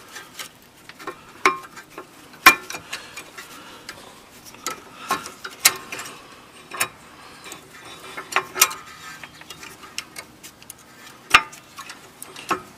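Irregular sharp metallic clicks and taps as new brake pads are worked into the rear caliper bracket of a 2001 Ford Excursion, the steel pad backing plates knocking against the bracket's metal abutment clips as each pad is angled in and pushed into place. A few of the clicks are much louder than the rest.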